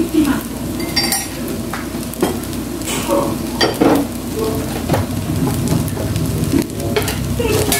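Rice sizzling as it fries in a nonstick frying pan, with a few short scrapes and knocks of a slotted spatula against the pan.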